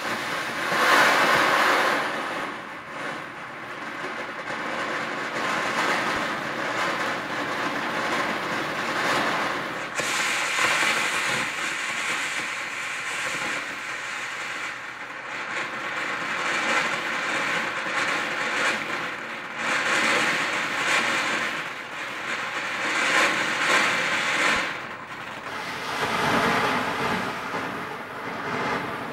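Colour fountain firework burning on the ground: a steady rushing hiss of spraying sparks that swells and eases every few seconds, brightening noticeably about ten seconds in.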